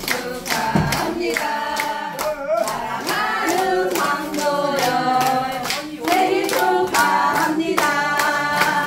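A group of men and women singing the birthday song together, clapping their hands in time.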